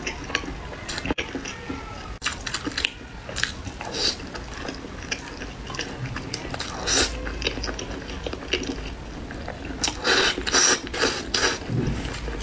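Close-miked eating: chewing and slurping noodles in spicy chili-oil broth, with wet mouth clicks and a run of louder slurps about ten seconds in.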